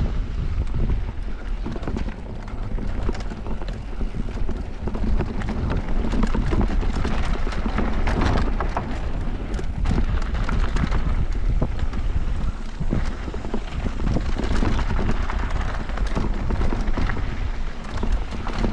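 Wind buffeting the microphone over the rumble of a mountain bike's tyres on a rough dirt trail, with a steady stream of knocks and rattles from the bike bouncing over bumps.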